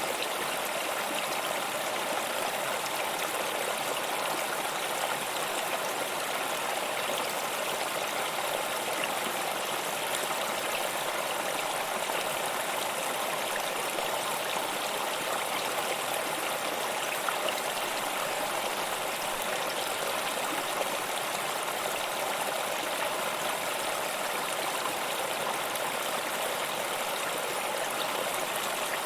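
Waterfall: the steady, even rush of falling water, more hiss than deep rumble, unchanging throughout.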